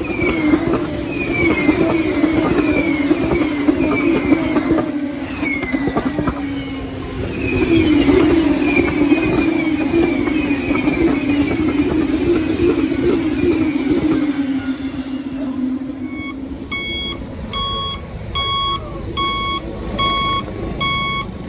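Formula 2 racing car engines droning past on the track, wavering in level, with repeated falling pitch sweeps as the cars brake for the corner. About three-quarters of the way in it switches to a recovery truck's reversing alarm, beeping steadily a little under twice a second.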